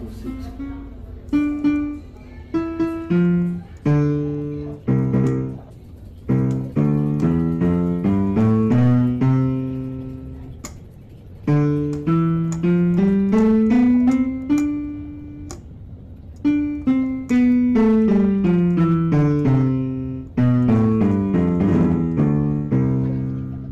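Background music: a piano melody of struck, fading notes running up and down in quick scale-like runs.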